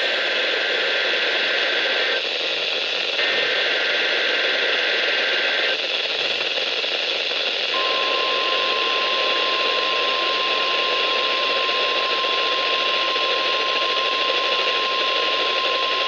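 NOAA Weather Radio Required Weekly Test on a handheld weather-alert radio, under heavy static hiss: SAME digital header data bursts, one ending about two seconds in and another from about three to six seconds in, then a steady single tone from about eight seconds in, the 1050 Hz weather radio alert tone.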